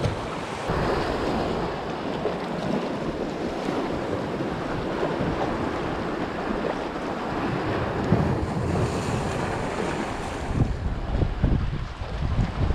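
Sea water washing and sloshing around shoreline rocks, with wind buffeting the microphone and gusting harder near the end.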